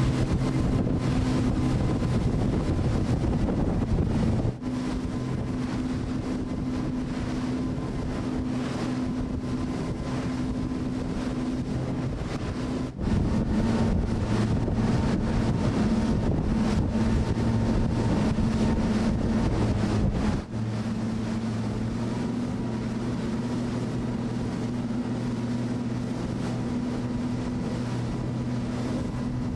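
A motorboat engine running steadily at speed, with wind buffeting the microphone and water rushing past. The engine note changes abruptly three times, about 4½, 13 and 20½ seconds in.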